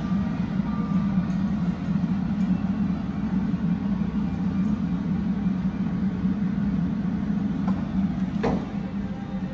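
Steady low hum of a wine fridge's cooling unit, its fan and compressor running. A single short click comes near the end.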